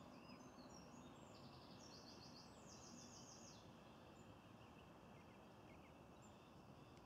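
Faint songbird song over a quiet outdoor background: a few high short notes, then from about a second and a half in a couple of seconds of rapid high trills, after which only faint chirps remain.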